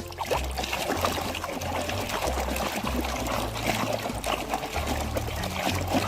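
Water pouring and trickling steadily over a muddy toy as it is washed.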